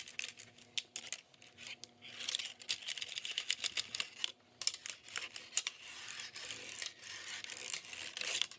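Dry cloth being rubbed over a mechanical keyboard: a hissy rubbing sound with many small, irregular clicks and taps from the keys and case.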